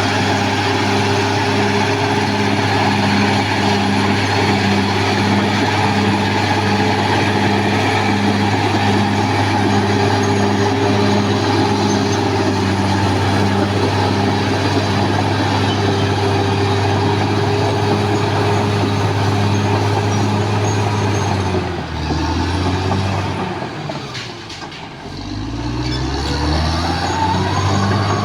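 CAT D6R XL bulldozer's diesel engine running steadily under work. About three-quarters of the way through, its pitch drops and the sound dips for a few seconds, then the engine revs back up.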